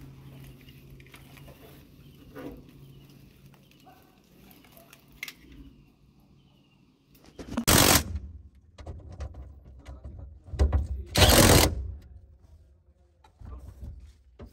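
Cordless power driver run in two short, loud bursts, about 8 and 11 seconds in, on the screws of an excavator cab's electrical panel, with some rattling of parts between them. Before that there are only light handling clicks and a faint hum.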